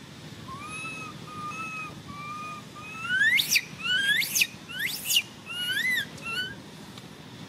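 Baby macaque crying: four short, level whistling coos, then three loud calls that sweep sharply upward in pitch, then two shorter arched coos.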